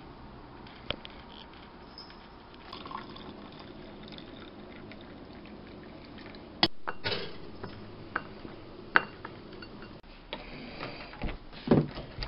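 Coffee being poured from a glass carafe into a ceramic mug. A string of sharp clicks and knocks follows in the second half.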